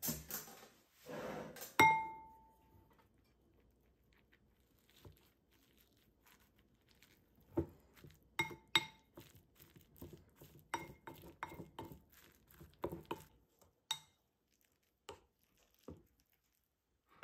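Wooden spoon knocking and scraping against a ceramic bowl while stirring and scooping food, each knock making the bowl ring briefly. One loud clink comes near two seconds in, then a quick run of clinks in the second half.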